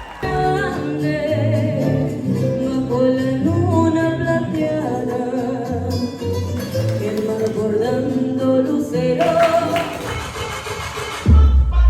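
A vocal duo singing a serenade with guitar accompaniment, sustained melodic sung lines over a plucked bass line. Near the end a sudden loud bass beat cuts in.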